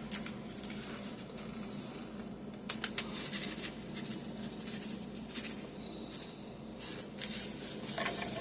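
Soft handling noises of gloved hands working marinade and seasoning onto a raw steak: faint clicks and rustles over a low steady hum, with a short run of clicks about three seconds in and more rustling near the end.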